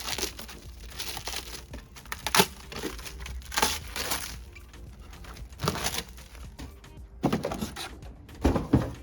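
Plastic packaging crinkling and rustling as rear tail-light units are handled, with a few dull knocks of the lights being set down.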